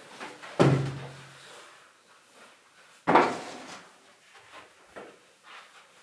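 A wooden chair being moved at a desk as someone stands up: a loud knock with a short drag about half a second in, another loud knock about two and a half seconds later, then a few faint taps.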